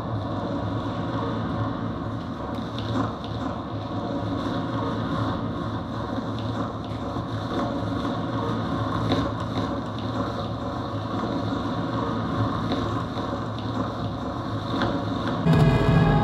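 Live experimental noise music: a dense, rumbling and crackling noise texture over a steady low hum, with scattered clicks. About fifteen seconds in it changes abruptly to a louder passage with held, higher tones.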